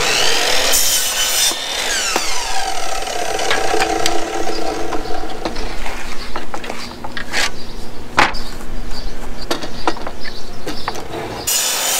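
Miter saw switched on and its blade cutting through a treated wood fence picket, then the blade winding down after the cut. Knocks of the board being shifted on the saw follow, and the saw starts up again near the end.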